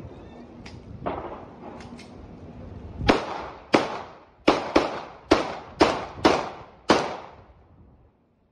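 Celebratory gunfire at a distance: a few faint pops, then a run of about eight loud, sharp shots over some four seconds, unevenly spaced, each with an echoing tail.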